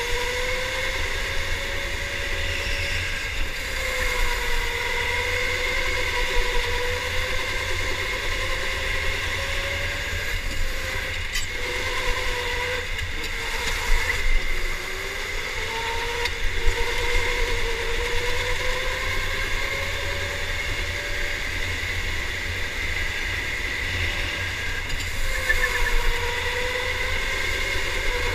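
Electric go-kart motor whining on board, its pitch rising and falling as the kart speeds up and slows through the corners, over a constant low rumble, with a few sharp knocks, the loudest about 14 seconds in.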